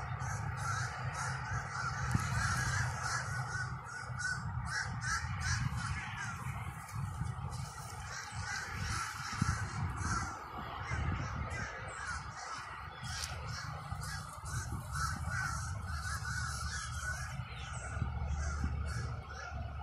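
A flock of birds calling noisily and continuously, with a steady low rumble underneath.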